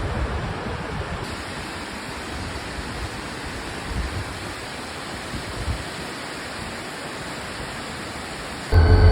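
Waterfall rushing as a steady, even noise. Near the very end a much louder low rumble with steady humming tones cuts in suddenly.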